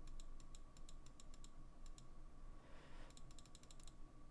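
Faint clicking of computer keyboard keys, in quick runs of several taps.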